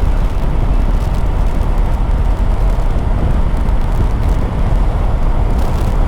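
A Yamaha R3 motorcycle at riding speed: steady wind rush on the helmet microphone over the engine's drone.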